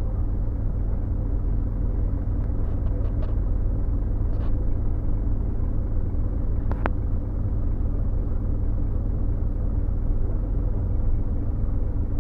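Scania OmniLink bus engine running with a steady low rumble and hum, heard from inside the passenger saloon. A sharp click comes about seven seconds in.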